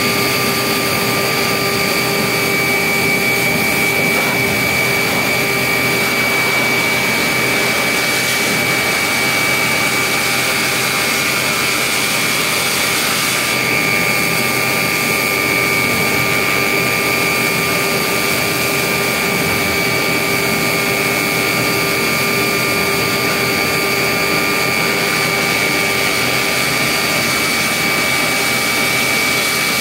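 Schwing Stetter shotcrete spraying machine running as its robotic-arm nozzle sprays concrete onto a tunnel wall: a loud, steady hiss with a high, unchanging whine.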